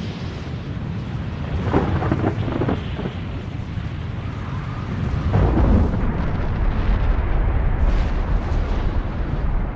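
Deep, continuous rumbling of a volcanic eruption as the lava dome of the Soufrière Hills volcano collapses, with a cluster of sharp cracking booms about two seconds in and a heavier, louder surge of rumbling from about five seconds in.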